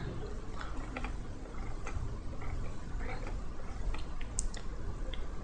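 A few faint, scattered clicks from a computer mouse and its scroll wheel over a low steady room hum.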